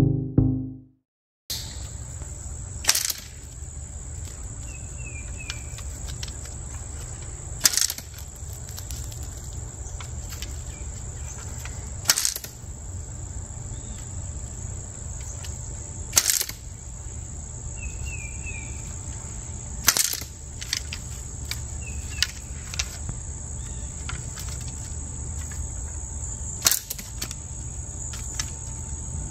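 A Powhatan longbow being shot again and again: six sharp snaps, one every four to five seconds, with a few fainter clicks between them. A steady high insect drone runs underneath.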